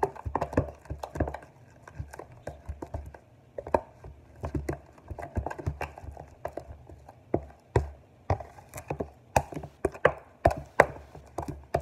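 Fingers squishing and kneading sticky, foamy shaving-cream slime in a plastic tub: an irregular run of wet smacks and clicks as glitter is worked in.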